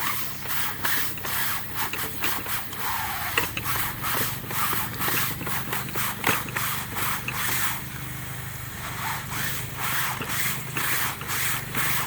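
Window screen worked back and forth through an Aztec Innovations screen washer, its brushes scrubbing and its water jets spraying in quick strokes, about two a second, with a short lull about two-thirds of the way in. A steady low hum runs underneath.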